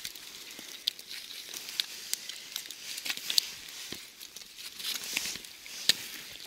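Irregular crinkling and scattered sharp clicks of a gloved hand handling a pile of freshly caught fish on icy snow.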